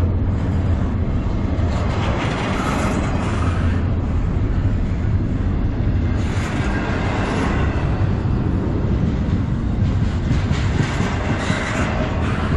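Double-stack intermodal freight cars rolling past close by: a steady, heavy rumble of steel wheels on rail, with a brighter clatter of wheels every few seconds.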